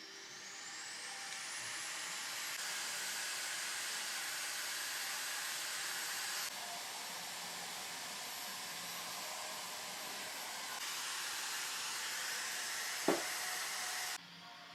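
Dyson HushJet Mini Cool portable fan spinning up with a rising high whine, then running as a steady rush of air. Its airflow steps down about six seconds in and back up about eleven seconds in. There is a short click near the end before the fan cuts off suddenly.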